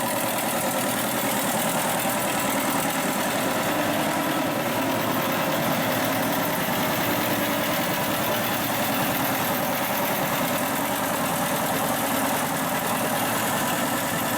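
1968 DeVilbiss 445 10 hp air compressor running steadily under load, its four-belt, flywheel-driven pump filling the tank toward cut-off pressure.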